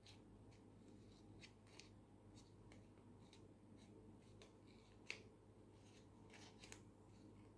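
Faint crinkling and soft clicks of paper petals being pinched and pressed between fingers, in scattered short crackles with one sharper click about five seconds in.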